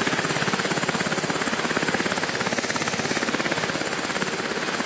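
MH-60 Jayhawk helicopter's rotor beating in a rapid, even chop over a loud rushing noise.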